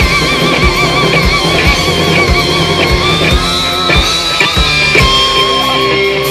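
A live rock band plays an instrumental stretch: electric guitar holds wavering, vibrato notes over a steady kick-drum beat of about one and a half strikes a second.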